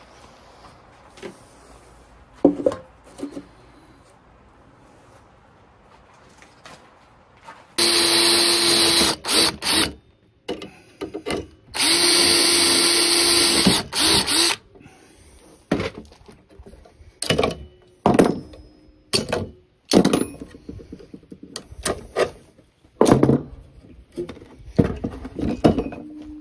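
DeWalt cordless drill running under load twice, for about two and then about three seconds, boring through the holes of a steel brake band to counterbore the woven brake lining. Short metal knocks and clicks come in between and afterwards.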